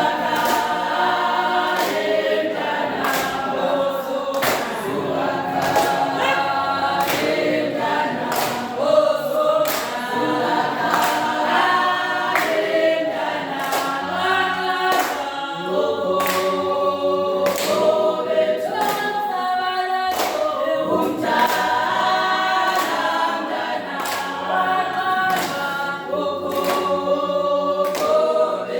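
A choir of voices singing together in harmony, a cappella in a gospel style, with a sharp regular beat keeping time.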